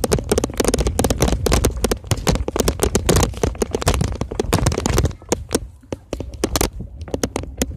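Handling noise on a phone's microphone: dense crackling, scraping and knocking, with a low rumble, as the phone rubs against a cotton shirt. It thins to scattered clicks after about five seconds.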